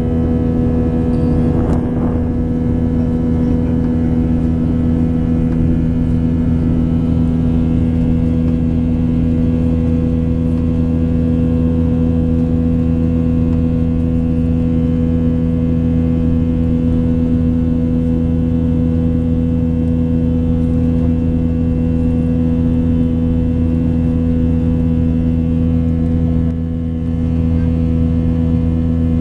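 Steady cabin drone of a Boeing 737-800 climbing after take-off: its CFM56-7B turbofans at climb power, heard through the fuselage as a low hum with a few steady tones. The drone dips briefly near the end.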